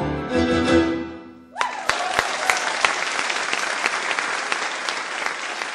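The final chord of a live classical ensemble rings out and dies away, and about a second and a half in the audience breaks into steady applause.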